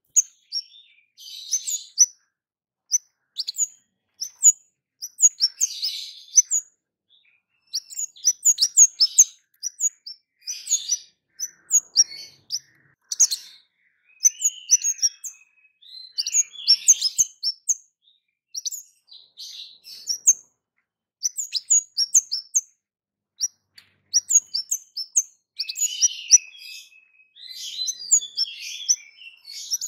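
Caged kemade songbird calling steadily: rapid series of sharp, high 'cit' chirps mixed with short scratchy warbled phrases, the 'cit keres' calling that keepers use to get other birds to answer.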